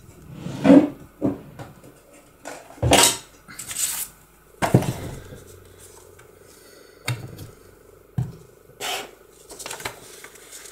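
Craft tools and paper being handled on a cutting mat: a paper trimmer is set down and sheets of paper are moved, giving a string of separate knocks, clatters and rustles, the sharpest about four and a half seconds in.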